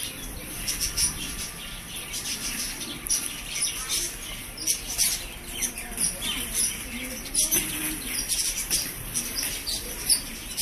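Birds chirping continually in many short high calls, over the steady rolling rumble of quad roller-skate wheels on a stone-tiled floor.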